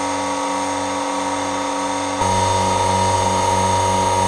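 Magneti Marelli MM TC-200 ATF exchange machine's electric pump running with a steady whine and an even pulsing beat as it circulates transmission fluid through the gearbox during a flush. It gets louder about two seconds in.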